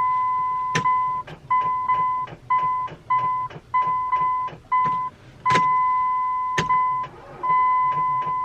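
Car's electronic warning chime, a steady single-pitched tone that keeps cutting out and coming back in uneven stretches, with sharp clicks in between, as the car fails to start.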